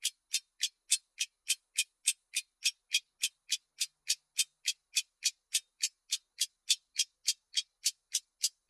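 Clock ticking sound effect: a steady, even run of sharp ticks, quick at about three and a half per second.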